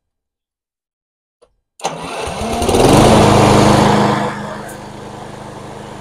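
Craftsman walk-behind lawn mower's engine spun by its 12 V electric starter running off a 20 V lithium battery, starting about two seconds in: it spins up quickly with a rising pitch, runs loudest for a second or two, then settles lower and dies away at the end. The quick, strong cranking shows the battery supplying the starter well.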